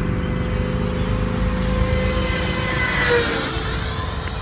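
E-flite F-15 Eagle 64mm electric ducted fan RC jet flying past with a steady high fan whine. About three seconds in, the pitch drops as it goes by.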